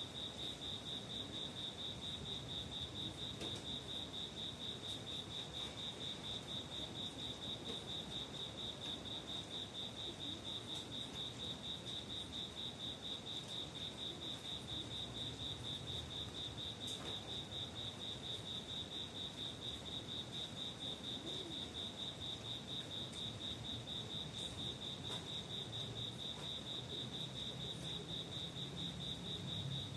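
A cricket chirping steadily: one high note pulsed in a fast, even rhythm without a break.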